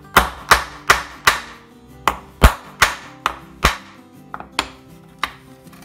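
Hammer peening the protruding tip of a small hinge screw against an iron block, flattening it into a kind of rivet. About a dozen sharp taps come at roughly three a second, with a short pause about two seconds in.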